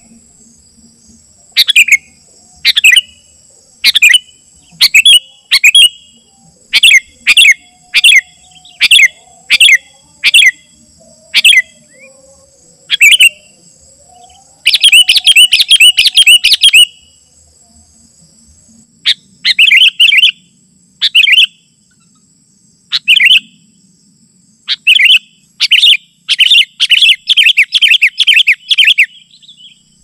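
Sooty-headed bulbul (kutilang) calling loudly and persistently. Short bright notes come about once a second at first, then break into quick runs of chattering notes around the middle and again near the end.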